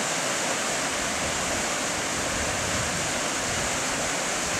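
Flowing stream water rushing steadily, an even hiss that does not change.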